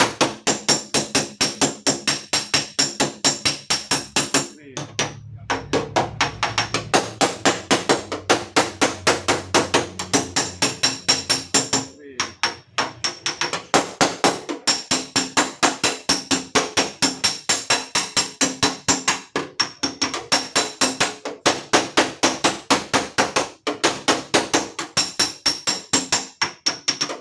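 Rapid hammer blows on the dented sheet-steel lower panel of a Toyota Calya rear door, several strikes a second, stopping briefly a couple of times, as the dent is beaten out.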